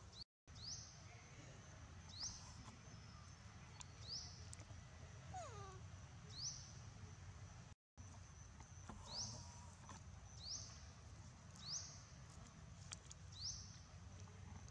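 Faint outdoor ambience: a steady high insect whine, with a short rising chirp repeating every second or two and a low rumble beneath. The sound drops out briefly twice.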